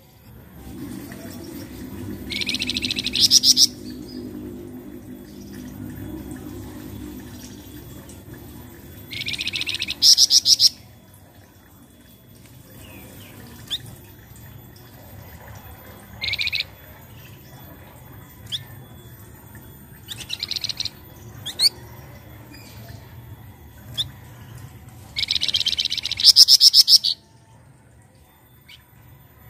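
Brown-chested jungle flycatcher (flamboyan) giving four harsh, buzzy rattling calls, each a second or two long, with short thin chirps and a quick rising whistle between them.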